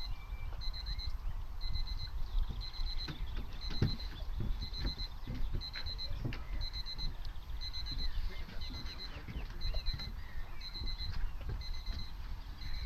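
Electronic timer beeping: a quick cluster of high pips about once a second, typical of a race-start countdown timer. Wind rumbles on the microphone, with handling bumps.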